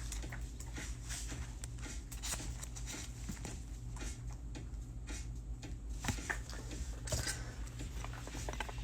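Trading cards being handled and flipped: faint scattered clicks and soft slides of card on card, over a steady low hum.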